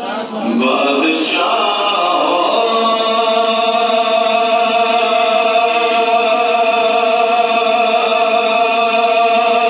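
A man singing a naat unaccompanied into a handheld microphone. A short wavering phrase turns, about a second in, into one long held note that stays steady in pitch.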